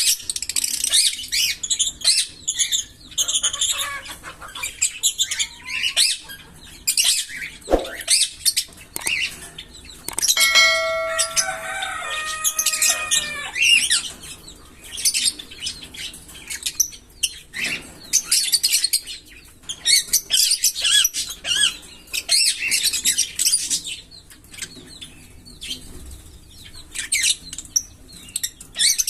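A pair of green Fischer's lovebirds chirping in rapid, high, scratchy runs. About ten seconds in there is a stretch of clearer pitched notes and short glides, and then the fast chirping resumes.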